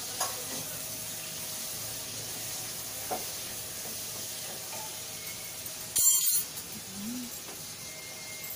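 Onion-tomato masala sizzling in a steel kadai while a wooden spatula stirs it, knocking lightly against the pan a couple of times. A short, sharp noise about six seconds in is the loudest sound.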